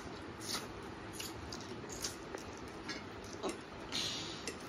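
Close-up eating sounds: instant noodles being slurped and chewed, with scattered light clicks of forks. There is a longer slurp about four seconds in.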